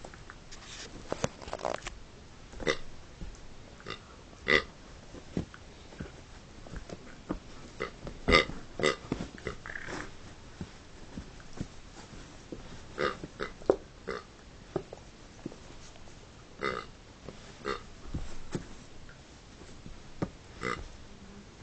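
Plush toy pig giving short grunting oinks, repeated irregularly, as a small dog bites and shakes it in a tug game.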